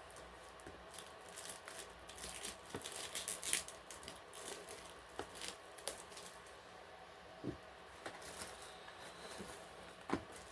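Cardboard product box being handled: light rustling with scattered small taps and clicks, busiest in the first few seconds.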